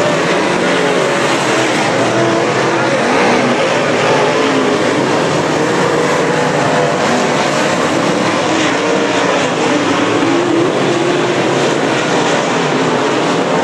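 A field of dirt late model race cars at speed, their V8 engines running hard at high revs. A loud, steady mass of overlapping engine sound, with the pitches of the individual cars wavering.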